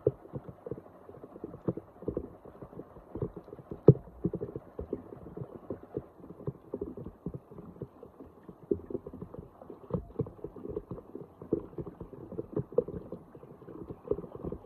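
Floodwater splashing and sloshing in irregular short bursts, as if being stirred or waded through, with a sharper knock about four seconds in and another around ten seconds.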